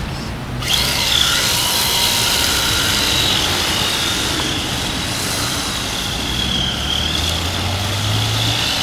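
Radio-controlled drift car's motor whining high as it is driven, the pitch wavering up and down with the throttle. The whine starts under a second in.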